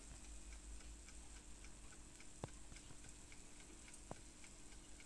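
Near silence: faint room tone with light, regular ticking and two soft clicks.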